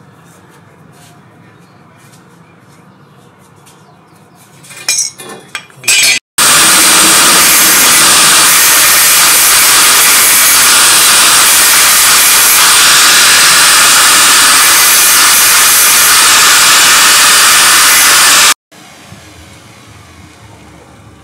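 Angle grinder with a thin cut-off disc cutting notches into a steel tube. It runs loud and steady for about twelve seconds, starting and stopping abruptly. A few light clicks come before it.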